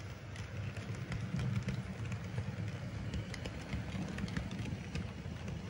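HO-scale model diesel locomotives and freight cars rolling past on the layout track: a steady low rumble with scattered light clicks.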